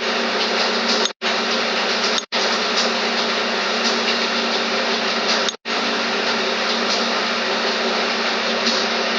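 Steady loud hiss with a low hum underneath, cutting out to silence for an instant three times.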